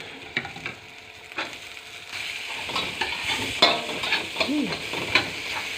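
Red onion, ginger and garlic frying in butter in a hot wok, sizzling, with a spatula knocking and scraping against the wok as they are stirred. The sizzle grows louder about two seconds in.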